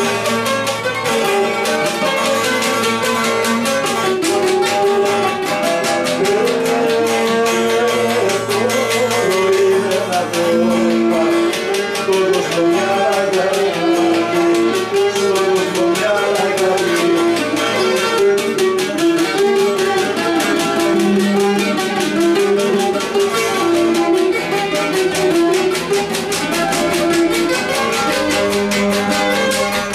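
Cretan lyra bowing a melody over the steady quick strumming of a laouto and a mandolin, a Cretan folk dance tune.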